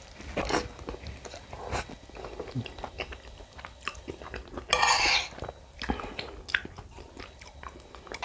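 Close-miked eating sounds: wet chewing and lip smacking on lontong with gulai and rice vermicelli, with small clicks of a spoon against the plate. A louder half-second rasp comes about five seconds in.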